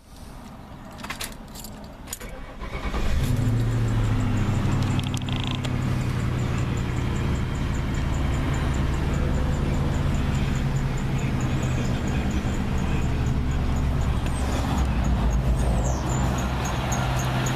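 Keys jangling and a few clicks, then about 3 s in a Ford Crown Victoria's V8 engine is heard, settling into a steady idle with a faint, quick high ticking on top.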